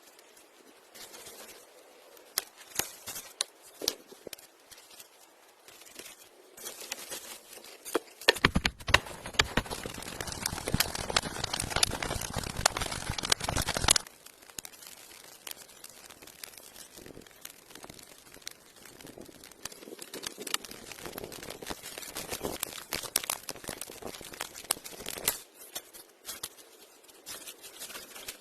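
Rustling and crackling of branches and brush being handled, with scattered snaps and knocks. About eight seconds in, a dense, louder run of crackling lasts about five seconds and then cuts off suddenly.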